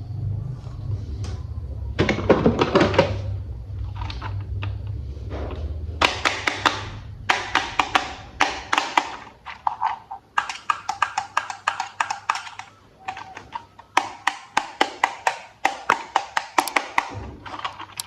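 Hard plastic toy train parts being handled and clicked together: a low rumble of handling at first, then quick runs of sharp clicks and taps.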